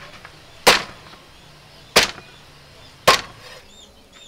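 Cleaver chopping through a grilled duck on a wooden chopping block: three heavy strikes, a little over a second apart.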